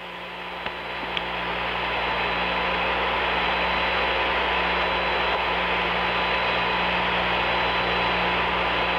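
Steady hiss of radio static on the open Apollo 11 air-to-ground voice channel, with a thin steady tone and a low hum under it; it swells up over the first two seconds and then holds level.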